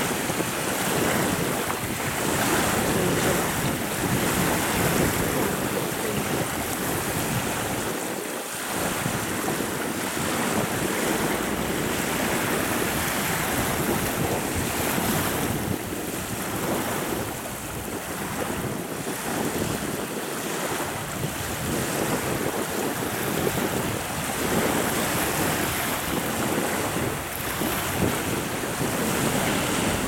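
Choppy river waves washing steadily, with wind gusting across the microphone in slow swells.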